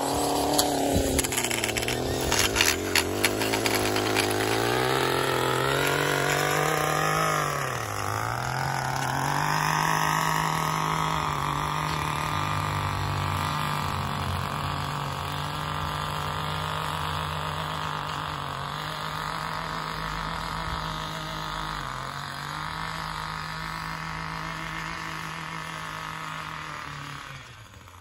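Gas-powered stick edger running steadily at high throttle, its engine note dipping briefly a few times as the throttle is eased. Sharp clicks in the first few seconds as the blade hits the concrete edge. The sound dies away at the very end.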